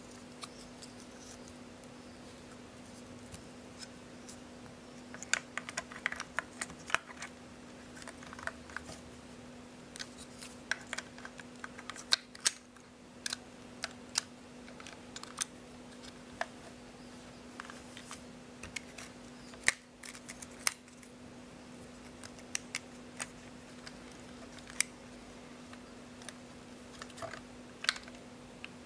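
Irregular small clicks, taps and scrapes of fingers handling a Konica POP compact 35 mm camera while loading film into it, with a faint steady hum underneath.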